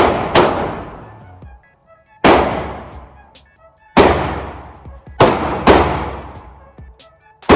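9mm Springfield XD pistol fired about seven times at uneven intervals, some shots in quick pairs, each shot echoing away over about a second.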